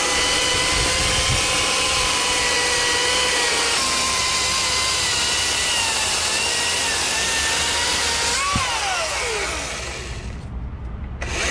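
Ryobi 40V HP brushless cordless chainsaw with an 18-inch bar cutting through a log: a steady electric motor whine with the chain chewing through wood. About 8.5 seconds in the whine falls in pitch as the motor winds down, then rises again as it speeds back up near the end.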